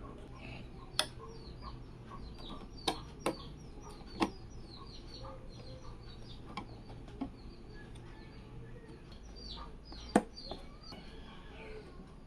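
Sharp clicks and knocks of computer parts being handled during assembly, about five of them, the loudest about ten seconds in. Behind them, birds chirp steadily and a low hum runs throughout.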